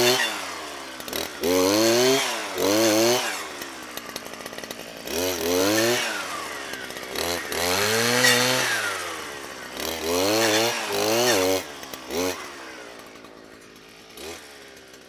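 Brushcutter engine revved up and let back down about half a dozen times, its pitch climbing to a high whine and falling back between bursts as the throttle is squeezed and released. Near the end it drops to a quieter low running and fades out.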